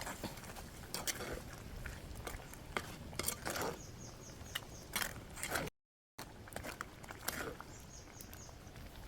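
A spoon clinking and scraping against a cooking pot as the ambarella curry is stirred: irregular sharp clicks and scrapes.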